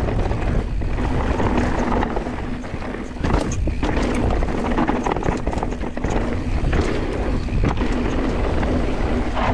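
Downhill mountain bike riding fast over a dirt trail: tyres rolling and crunching over loose soil and stones, with frequent rattles and knocks from the bike over bumps.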